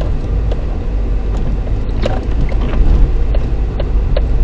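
Toyota Camry driving on a snow-covered road, heard from inside the cabin: a steady low rumble of tyres and engine, with light irregular ticks.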